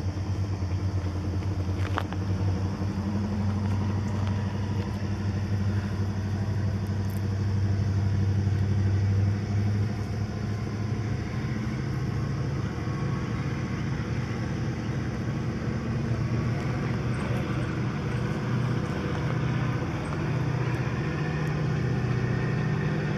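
Diesel locomotive engines of an approaching train, a steady low engine drone whose pitch shifts and grows a little louder toward the end.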